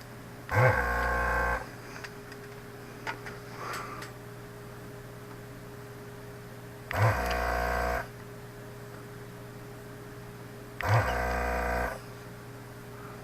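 Electric vacuum desoldering pump buzzing in three short bursts of about a second each, sucking molten solder from circuit-board pins. A faint steady hum runs underneath.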